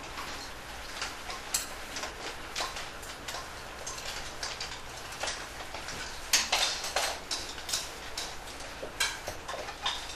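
Spoons and chopsticks clicking and tapping against black baru bowls as a row of people eat a silent formal Buddhist meal: scattered, irregular light clicks, the loudest a little past halfway.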